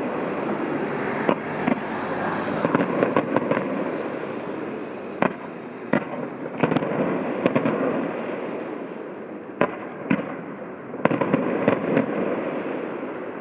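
Fireworks display heard from about a kilometre away: irregular sharp bangs of bursting shells, some in quick clusters, over a continuous crackling hash.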